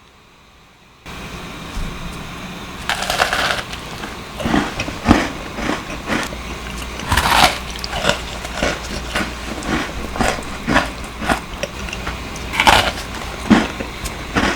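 Close-miked crunching of crisp butter cookies being bitten and chewed, starting about a second in, with three louder bites about three, seven and twelve seconds in, over a steady low hum.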